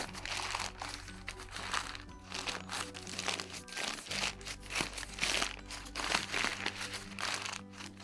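Paper bag crinkling and rustling in irregular bursts as its top is rolled down, with background music underneath.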